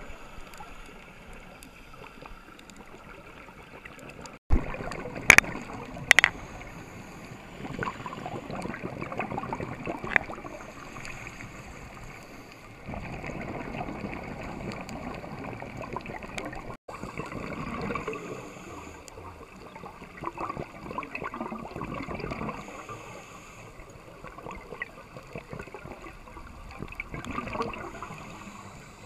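Muffled underwater noise heard through a dive camera's housing, with surges of gurgling bubbles from scuba breathing that come and go. Three sharp knocks about five to six seconds in, the loudest sounds.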